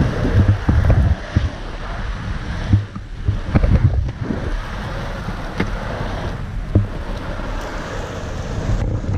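Loaded Icarus longboard rolling and carving over asphalt: a steady wheel rumble mixed with wind noise on the camera microphone, and several irregular sharp knocks.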